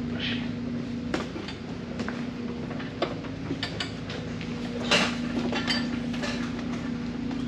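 Formula 1000 race car being rolled and positioned on a metal chassis-setup platform: several metallic clinks and knocks, the loudest about five seconds in, over a steady background hum.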